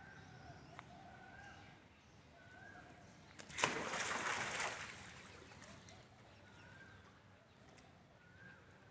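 A monkey splashing into a small garden pond: a sudden loud splash about three and a half seconds in, with water sloshing for about a second. Birds give short repeated calls in the background.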